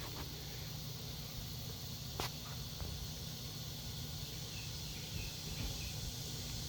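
Steady outdoor background of insects buzzing and chirring, with a faint click about two seconds in.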